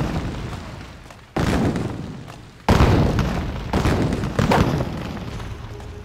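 A series of heavy booms, each starting suddenly and dying away: two big ones about a second and a half apart, then two smaller ones, the sound trailing off near the end.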